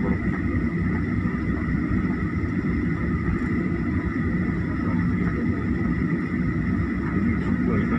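Cabin noise of a Boeing 737 jet airliner taxiing: a steady jet-engine whine over a low rumble, heard from inside the cabin.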